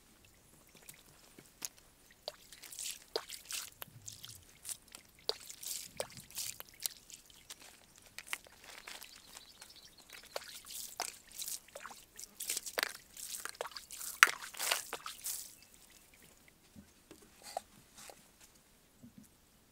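Scattered short taps, crunches and splashy drips from walking and handling a woven basket and fruit beside a water tank, busiest through the middle and thinning out near the end.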